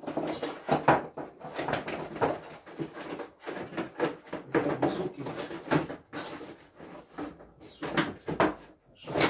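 Irregular knocking, clattering and rattling of objects being handled and moved about in a small workshop, with louder knocks about a second in and near the end.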